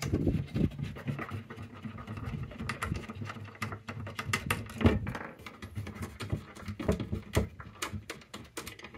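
Fasteners being unscrewed by hand from a plywood battery-compartment panel: irregular small clicks, taps and scraping of metal on wood, with close handling noise.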